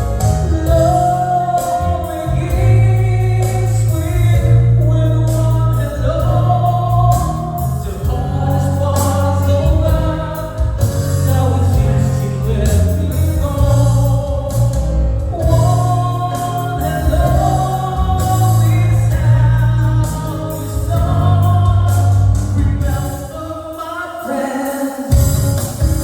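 Music: a song with singing over a strong bass line and regular drum hits.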